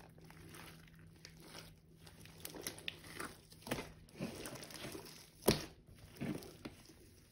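Slime being squeezed, stretched and folded by hand, with irregular crackling and squishy popping as air pockets burst; the loudest pop comes about five and a half seconds in.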